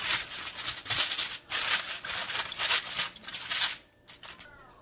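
Aluminum foil crinkling and rustling in uneven bursts as it is pressed and crimped down over the rim of a glass baking dish. The crinkling stops a little before four seconds in.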